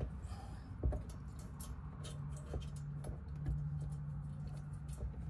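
Scattered faint clicks and light taps of small metal hardware, a spacer, washer and bolt, being handled and fitted by hand to a steel Molle panel. A low steady hum comes in about two seconds in and fades near the end.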